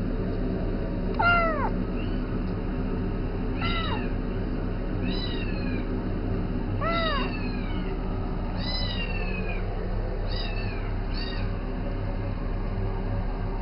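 Domestic cat meowing repeatedly, about eight meows spaced a second or two apart, each falling in pitch, over a steady low hum.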